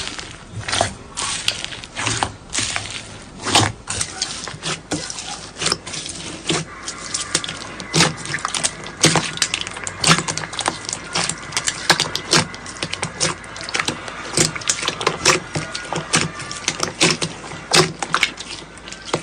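Slime being squeezed and pressed by hand, giving a dense, irregular run of wet clicks and pops, several a second.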